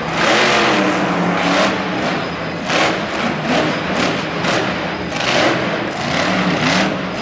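Monster truck's supercharged V8 engine revving hard in repeated bursts, the pitch swelling and dropping every half second to a second as the driver works the throttle.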